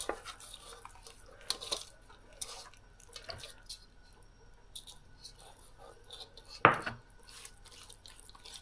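Hands rubbing spice marinade into whole fish in an aluminium bowl: small wet squelching clicks, with one louder knock against the metal bowl about two-thirds of the way through.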